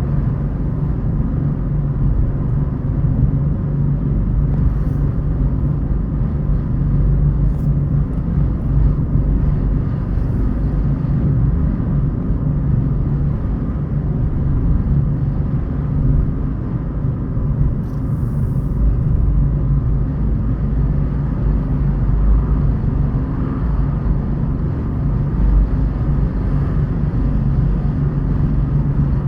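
Car driving along city roads: a steady low rumble of engine and tyre noise, with a few faint brief ticks.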